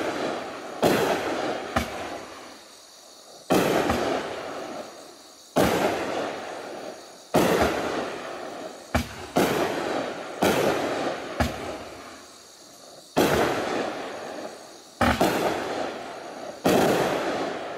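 Raging Willow 200-gram consumer fireworks cake firing shot after shot: about a dozen aerial breaks, one every second or two, each a sharp bang that trails off over a second or so.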